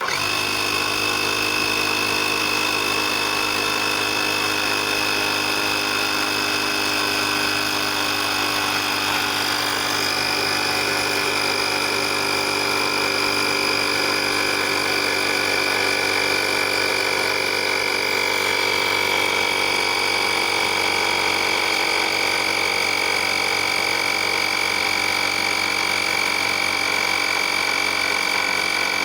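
Oasser portable air compressor switching on and running steadily with a high whine. Its pitch steps slightly lower twice, about ten and about nineteen seconds in.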